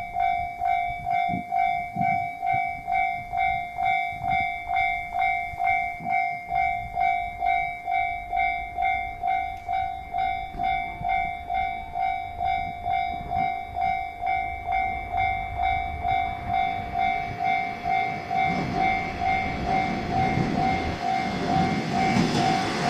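Japanese level-crossing warning bell ringing steadily, about two strokes a second, while a 1200-series diesel railcar approaches and grows louder over the last several seconds.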